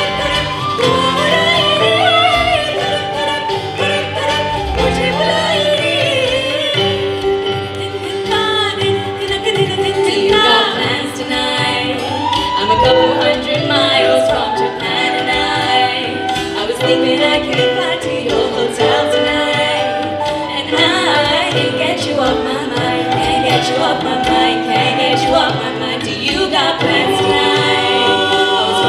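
Music: singing with instrumental accompaniment.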